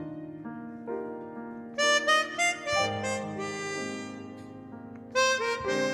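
Chromatic harmonica playing a slow melody over grand piano accompaniment. The melody swells louder about two seconds in and again near the end, with the piano's held chords in between.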